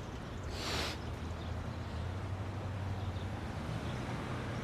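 A short breathy hiss about half a second in, then a steady low hum of quiet room tone.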